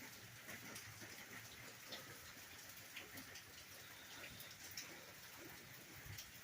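Rain falling: a faint, steady hiss with scattered drops ticking close by.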